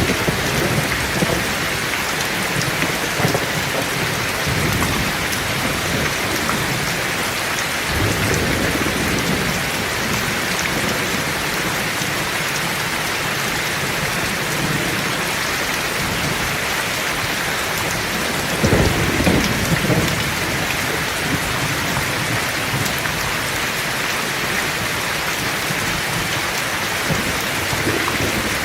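Heavy rain falling steadily, with low thunder rolling now and then; the loudest roll comes a little past the middle.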